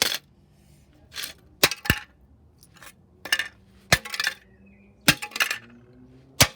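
An old boiler control panel being smashed: about eight sharp hits, spaced unevenly, each followed by a brief clinking and rattling of broken plastic and metal pieces.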